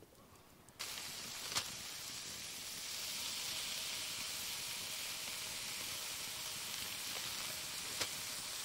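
Bacon slices sizzling in a frying pan over a campfire: a steady hiss that begins suddenly about a second in, with a couple of sharp pops.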